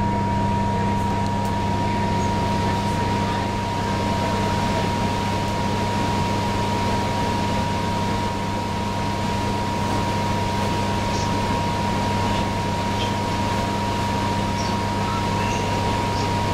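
Cummins ISL9 diesel engine of a New Flyer Xcelsior XD40 bus running steadily, heard inside the passenger cabin: a steady low hum with a thin, high whine held over it.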